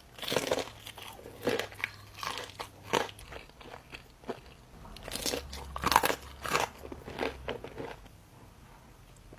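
A person biting and chewing crunchy food close to the microphone, with irregular loud crunches, the loudest about six seconds in, dying down near the end.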